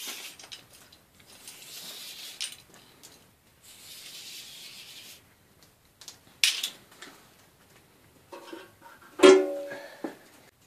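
A thin flexible metal strip being handled: three patches of scraping and rustling, a sharp click partway through, then near the end a loud metallic twang that rings for about a second.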